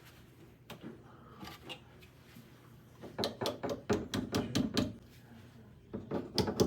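Hand-tool work on a metal shelf bracket against a tiled wall: a few scattered clicks, then two fast runs of sharp clicks and knocks, about halfway in and near the end. A faint steady low hum from a running dishwasher lies under it.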